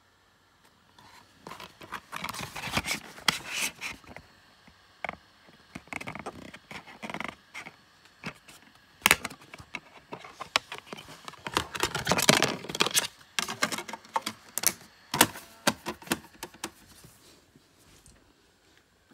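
Plastic DVD case and disc being handled: a long run of clicks, taps and plastic scraping, with a sharp loud click about nine seconds in.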